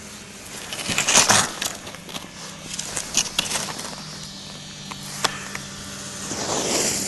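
Skis sliding and scraping over packed snow during a downhill run, with louder scraping surges about a second in and again around three seconds in, a few sharp clicks, and the noise swelling again near the end.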